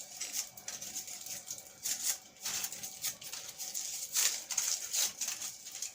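Crinkling and rustling of the protective lining sheets being peeled off a gas stove top and crumpled up, in irregular short crackles.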